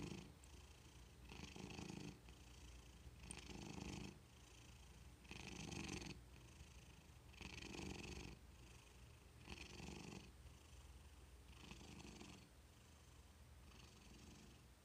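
A white long-haired cat purring softly, the purr swelling about every two seconds with each breath.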